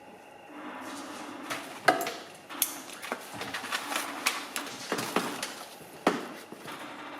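Irregular knocks and taps of hand work at a bench: a sharp knock about two seconds in, a run of smaller taps and clatter, then another sharp knock about six seconds in.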